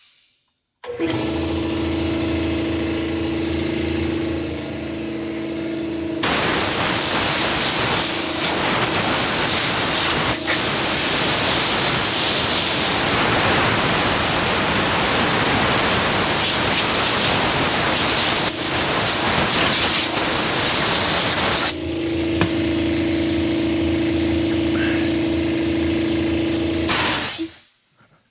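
An electric compressed-air blower clears a computer keyboard. Its motor starts about a second in with a steady hum, a loud rush of air drowns it from about six seconds in for about fifteen seconds, then the hum runs on alone and stops near the end.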